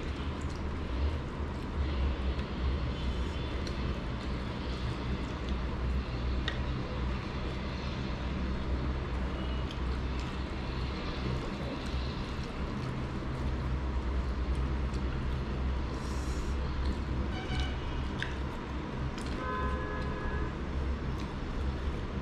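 Steady low rumble of background noise, with a few faint scattered clicks and a brief high tone near the end.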